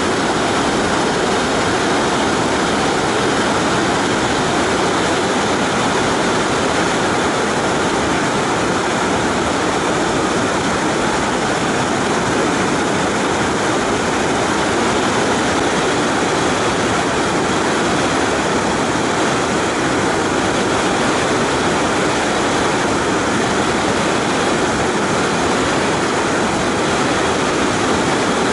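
Steady rushing roar of a waterfall, an even wash of water noise that does not change.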